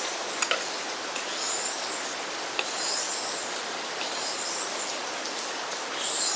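Small knife's blade being stroked across a sharpening stone by hand, a gritty scraping swish repeated about once every second and a half, with a few light clicks, over a steady hiss.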